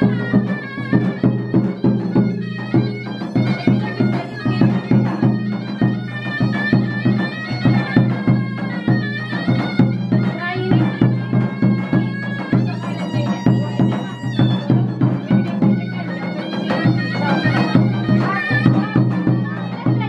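Live folk music from a davul, a large double-headed bass drum beaten with a stick in a quick rhythm, and a shrill reed wind instrument playing a fast ornamented melody.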